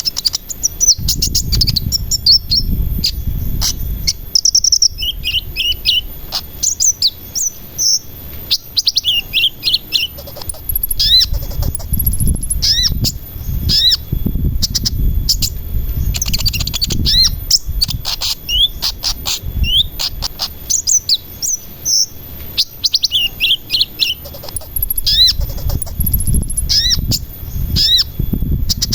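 Sunbird ('kolibri') singing a fast, busy song of high chirps, short trills and quick rising whistled notes, over a low background rumble.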